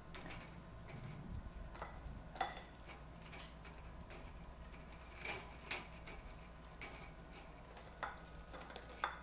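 Baked butter cookies being picked off a perforated metal baking tray and set into a glass bowl: faint, scattered clicks and clinks, a pair of louder ones about five and a half seconds in.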